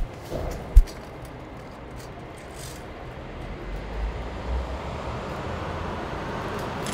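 Traffic on a wet street: the tyre hiss and low rumble of a passing vehicle swelling through the second half. A sharp knock about a second in.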